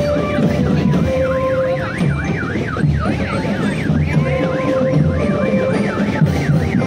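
A siren in yelp mode, its pitch sweeping up and down about four times a second, over steady drumming and held notes.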